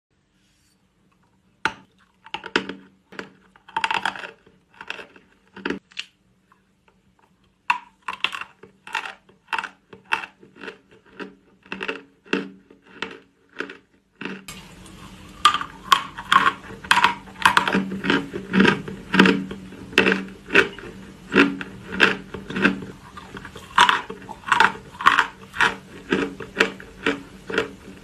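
Close-miked ASMR crunching: a long run of short, crisp crunches and clicks at about two to three a second, with a brief pause early on and a steady low hiss under them from about halfway.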